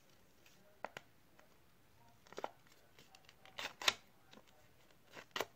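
A sheet of paper being folded and handled: scattered short, crisp paper crackles and snaps, the loudest a little under four seconds in.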